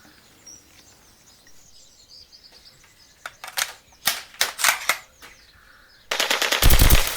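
Gunfire: scattered single shots and short bursts, then a long rapid burst of machine-gun fire near the end, the loudest part.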